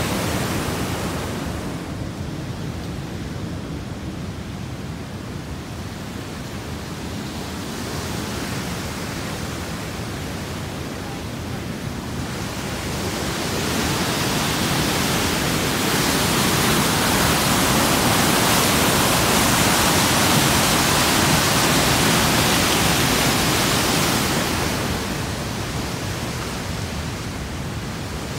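Whitewater of Sol Duc Falls rushing over rocks: a steady hiss of falling water. It swells about halfway through and eases off again near the end.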